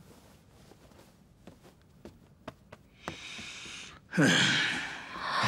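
A person takes an audible breath in, then lets out a long, loud voiced sigh with a falling pitch. A few faint clicks come before it.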